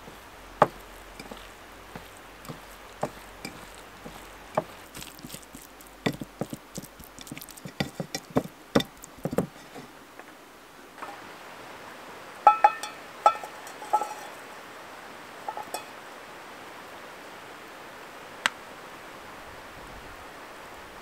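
Hands mixing spiced raw chicken pieces in an enamel bowl: a run of soft knocks and clicks, thickest between about six and nine seconds in. Later come a few ringing metallic clinks over a steady outdoor hiss.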